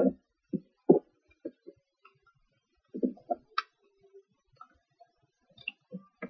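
Hands folding and creasing a sheet of paper on a wooden tabletop: short, scattered taps and paper rustles with quiet gaps between them.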